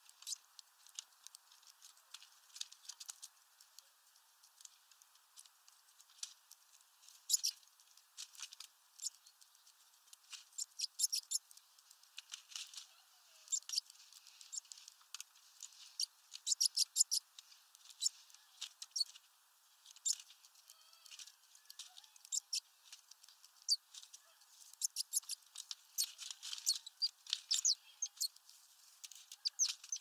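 Great tits pecking at a mesh-bag seed ball and tapping food on a metal perch: irregular sharp taps and clicks, some coming in quick runs of several strokes.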